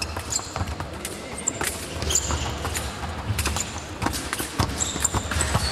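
Sabre fencers' footwork on the piste: quick steps and short sneaker squeaks on the hall floor, mixed with sharp clicks that fit blades striking.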